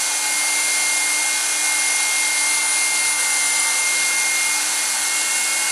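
Electric knife running steadily, its reciprocating blades sawing slowly through a thick foam case insert, with a thin high whine over the motor noise.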